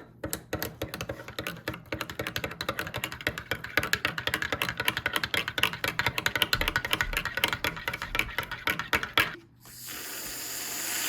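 Fast typing on a computer keyboard, many key clicks a second, stopping about nine seconds in. A hiss then starts and grows louder toward the end.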